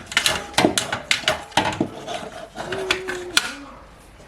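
Quick irregular clicks and knocks of a metal spice rack and a level being handled against a tiled wall, with a short low hum a little past halfway.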